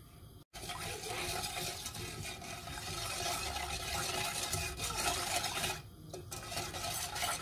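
Wire balloon whisk stirring milk with sugar in a stainless steel pot, a continuous swishing of liquid. It starts about half a second in and dips briefly near six seconds.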